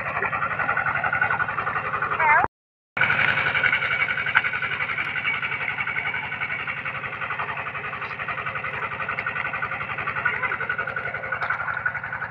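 Small engine of a water pump running steadily with a fast, even beat, under a steady rushing hiss of water, as the pond is pumped out. The sound cuts out for about half a second between two and three seconds in.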